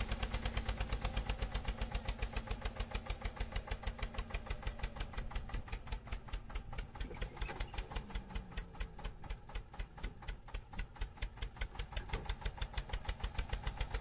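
Diesel tractor engine chugging steadily, an even beat of about six pulses a second.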